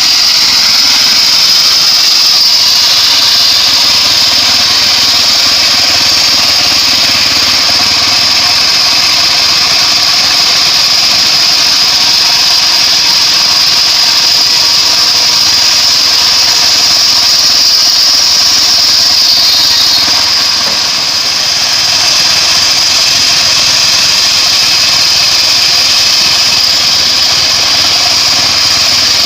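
Homemade engine-driven bandsaw sawmill running steadily, a loud continuous drone with a strong high whine. The level dips briefly about twenty seconds in.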